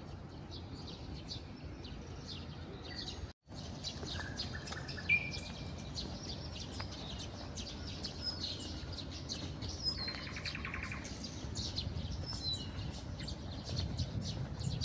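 Several songbirds chirping and singing in quick, overlapping calls, with a short buzzy trill about ten seconds in, over a steady low background rumble.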